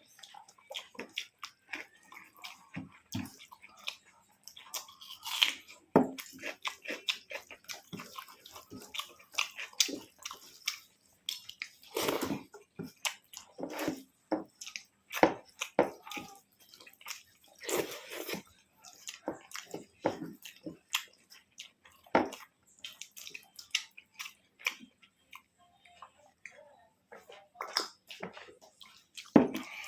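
A person eating rice with vegetable curries and omelette close to the microphone: chewing and wet food-handling sounds in irregular short bursts and clicks.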